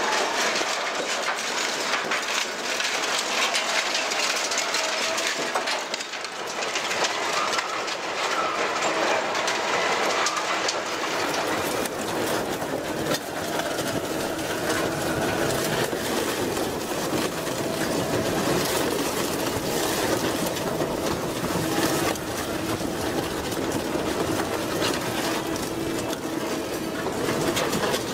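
Industrial twin-shaft shredder running, with continuous metallic clanking and crunching as scrap and then a van's sheet-metal body is torn apart between its rotors. About halfway through, a steady machine hum comes up under the clatter.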